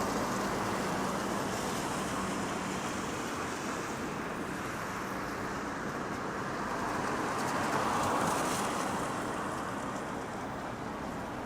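Street traffic on wet pavement: a steady hiss of tyres on the wet road, swelling as a vehicle passes about eight seconds in.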